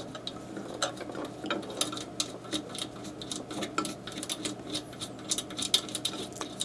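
Irregular small clicks and scrapes, several a second, as a knob is turned and tightened into the steel printhead mounting plate of a Datamax O'Neil I-Class Mark II label printer, over a steady low hum.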